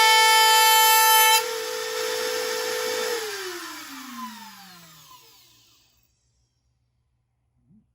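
Makita 1 1/4 HP compact router running at full speed in a router table, with a high steady whine as the bit cuts the edge of a scrap board. The cut noise stops about a second and a half in, and the router keeps spinning more quietly. About three seconds in it is switched off and winds down, its pitch falling until it stops a few seconds later.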